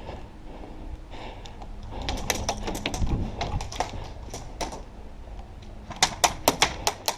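Scattered sharp clicks and taps, then from about six seconds in a fast run of louder sharp clicks, about six a second.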